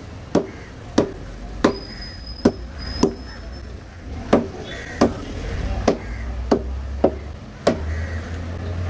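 Heavy curved fish knife chopping through fish into the wooden cutting table: about eleven sharp chops, roughly one every two-thirds of a second.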